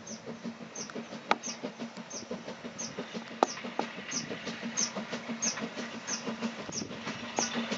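GWR King class four-cylinder 4-6-0 steam locomotive pulling away with a train, its exhaust beats quick and even and growing louder toward the end. A short high chirp repeats about every two-thirds of a second throughout, and two sharp clicks stand out, about a second and three and a half seconds in.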